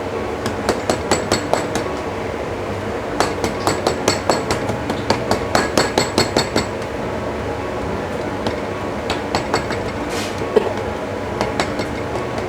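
Runs of quick light taps, about four or five a second, as a utensil pokes through stacked spring-roll wrappers onto the hard surface beneath, with a few scattered taps near the end. A steady background hum runs underneath.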